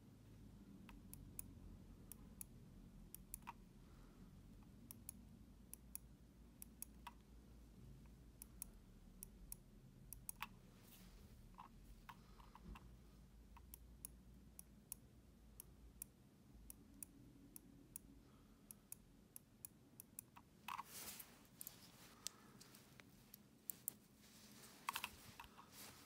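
Omron D2FC-F-K (50M) mouse microswitch being pressed and released by finger, giving short, sharp clicks repeated irregularly. Near the end come a few denser clusters of louder clicks and knocks.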